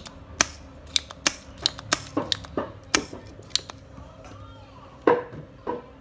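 A run of sharp clicks and taps, about ten in the first four seconds, then two louder snaps with a short ring about five seconds in: a spring-loaded desoldering pump and soldering iron being worked on a printer's circuit board to free the USB port.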